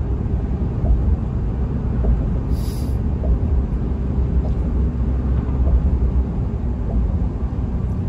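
Steady low road rumble of a truck driving at highway speed, heard from inside the cab. A brief high hiss comes about two and a half seconds in.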